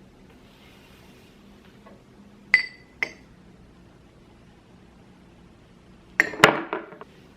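Glassware clinking: two ringing clinks about two and a half and three seconds in, then a louder cluster of glassy knocks and clinks near the end.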